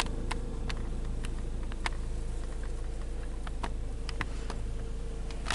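Inside a car rolling slowly on an unpaved gravel farm driveway: a steady low road and engine rumble with scattered sharp ticks of small stones under the tyres.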